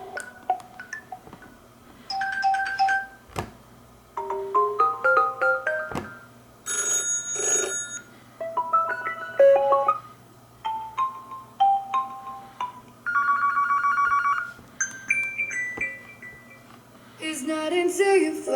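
Huawei Mate 10 Pro ringtones played one after another as short previews: about nine brief chiming melodies and a trilling ring, each a second or two long and cut off before the next starts.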